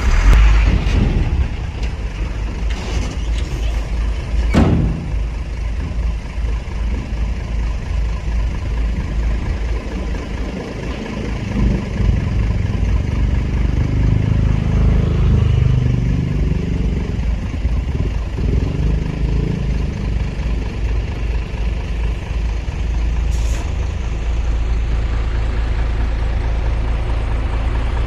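Heavy diesel construction machinery running with a steady low rumble, growing louder for several seconds midway; a single sharp metallic knock sounds about four and a half seconds in.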